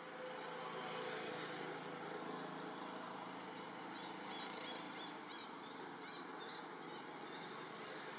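Steady outdoor background noise, with a quick run of about seven short, high chirps starting about four seconds in.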